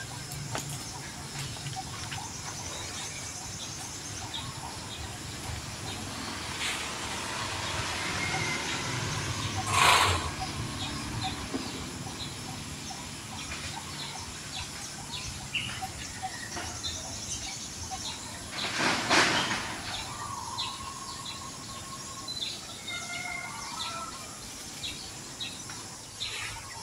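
Outdoor ambience of short bird chirps and calls over a steady background hiss. Two louder, brief noisy bursts come about ten and nineteen seconds in.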